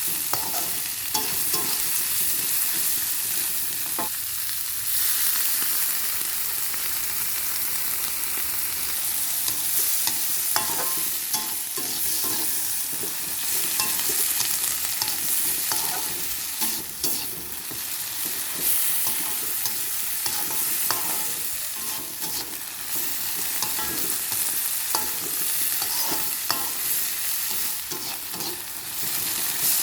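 A vegetable stir-fry of long beans, bean sprouts and tempeh sizzling steadily in hot oil in a pan. It is stirred with a spatula that scrapes and clicks against the pan many times throughout.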